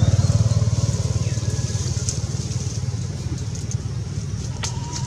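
A running engine with a low, evenly pulsing rumble that slowly fades.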